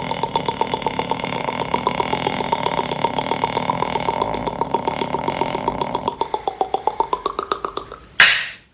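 Beatboxer's vocal nose sound: a sustained high-pitched hum chopped into fast, even pulses. Its pitch dips and climbs back near the end, and it ends with a short, loud burst of noise.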